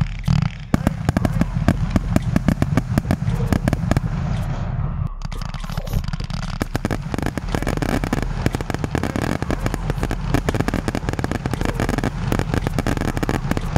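Fireworks going off in a dense, rapid string of cracks and bangs, many per second.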